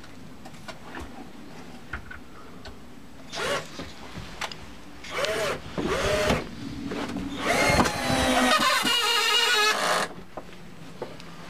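Cordless drill-driver running into the wooden railing: three short bursts that spin up and down, then a longer run of about two and a half seconds that stops abruptly, as self-tapping screws are driven into the wood.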